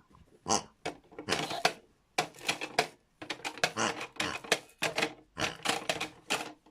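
Pigs grunting in a quick, irregular run of short grunts, several a second.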